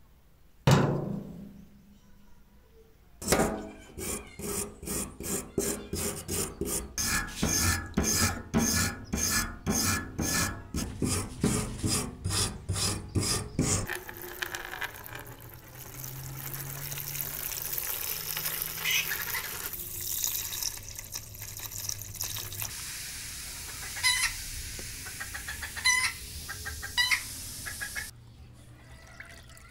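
A sharp knock, then a regular series of strokes about twice a second for some ten seconds. After that, water runs in a steady stream into a plastic tub holding a rusty scissor jack, with a few sharp clicks near the end.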